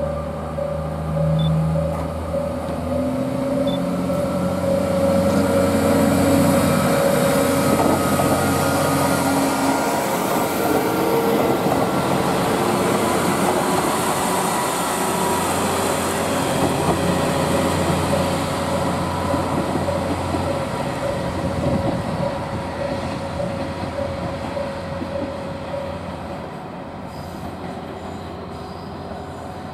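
KiHa 40-series diesel railcar running past at close range: diesel engine note and wheels on the rails, loudest as the cars go by, then fading away.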